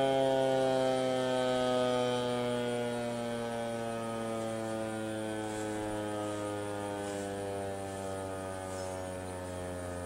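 ASC T-128 outdoor warning siren winding down at the end of its alert-signal test, its steady tone falling slowly in pitch. It grows quieter about two seconds in.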